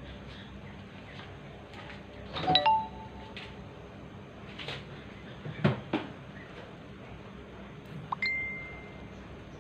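Pineapple and coconut-milk broth simmering in a wide metal pot on a stove burner, a steady low hiss of bubbling. A few sharp metallic clinks and knocks cut in, two of them leaving a short ringing tone, the longer one near the end.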